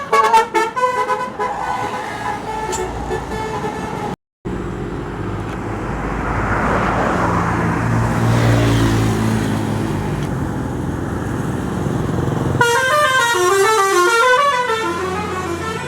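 Tour bus 'telolet' multi-tone horns. A horn tune dies away at the start, then there is a brief break in the sound. A bus engine then runs past with a growing rush of noise, and about three seconds before the end a telolet horn plays a quick warbling tune that steps up and down in pitch.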